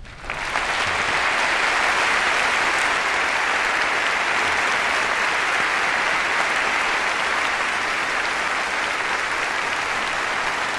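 Large audience applauding steadily, the clapping swelling up within the first half second and holding.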